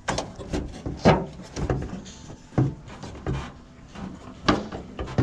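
A string of sharp clunks and clicks, about seven of them, with rattling and rubbing between, as parts of a car's rear hatch and wiper assembly are handled.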